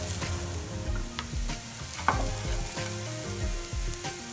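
Wooden spatula stirring and scraping a frying masala of shallots, garlic, green chillies and curry leaves in a nonstick pan, over a steady sizzle of hot oil. Scattered light knocks run through it, with one sharper knock about two seconds in, as crushed roasted coconut is added to the pan.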